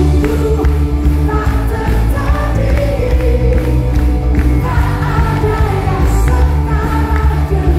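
Upbeat praise-and-worship pop song played loudly over a PA system, with a strong bass beat and a lead singer on a microphone.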